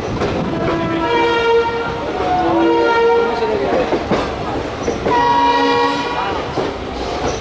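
An Indian Railways train's horn sounding three blasts, each a chord of several tones, over the steady rumble and wheel clatter of the train rolling into the station.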